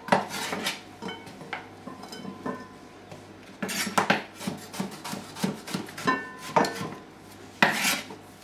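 Kitchen knife cutting courgette on a wooden chopping board: irregular knocks of the blade on the board, with a few clinks of kitchenware and a louder scrape near the end.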